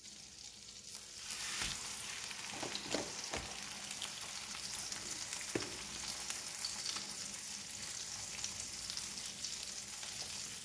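Egg-soaked bread sizzling as it fries in melted butter in a nonstick frying pan over a low flame. The sizzle grows louder about a second in as a second slice is added, with a few light knocks.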